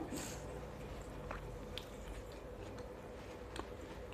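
Faint chewing and wet mouth sounds of a person eating fruit close to a clip-on microphone, with a few soft clicks.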